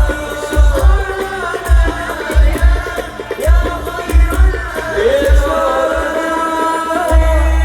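Sholawat singing backed by heavy drum beats, with a deep bass note coming in near the end and holding.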